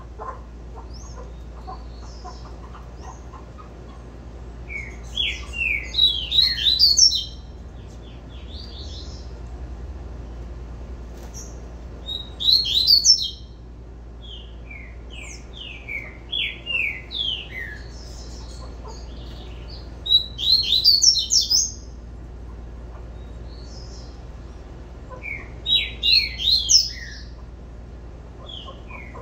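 A caged double-collared seedeater (coleiro) singing its 'tui-tui' song: about five short bursts of quick, high, downward-slurred notes, a few seconds apart.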